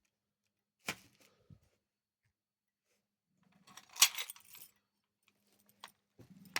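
Metallic clicks and a jangling, rattling clatter from handling a fire alarm pull station after it has been pulled. There is a single click about a second in, a louder clatter around four seconds, and more clicks near the end.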